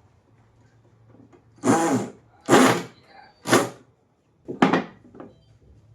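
Woodworking on pallet wood: four short, noisy strokes about a second apart, followed by a couple of fainter ones.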